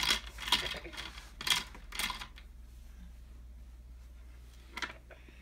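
Plastic toy parts on a wall-mounted activity board clacking and rattling as they are handled, with four or five sharp clacks in the first couple of seconds and one more near the end.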